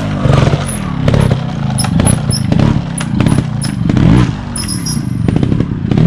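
Trials motorcycle engine blipped hard and repeatedly for wheelies, its pitch rising and falling several times in a row, with short knocks between the revs.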